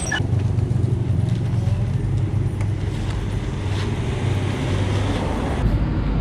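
A road vehicle's engine running steadily, a low even drone.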